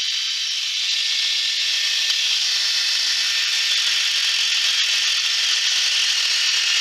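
Electric drill driving a homemade wood lathe, with sandpaper held against the spinning wooden blank making a loud, steady hiss.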